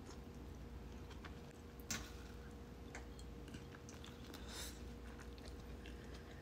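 Close mouth sounds of someone biting and chewing pieces of sauce-coated egg from an egg boil, with scattered small wet clicks and one sharper click about two seconds in.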